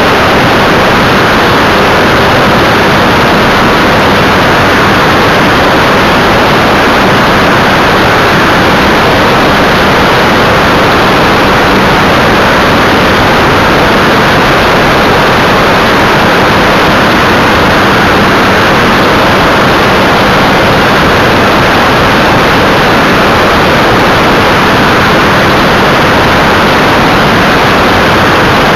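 Loud, steady rush of airflow over a camera mounted on the tailplane of an Evektor EV-97 Eurostar light aircraft in cruising flight, with the engine and propeller drone low underneath.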